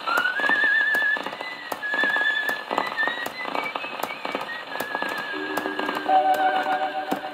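HMV 156 wind-up gramophone playing a worn 6-inch Mellotone 78 rpm record of a dance orchestra fox trot: a wavering high melody line over the band, thin-sounding, with frequent clicks and crackle from the scratched surface. Lower held notes come in about five seconds in.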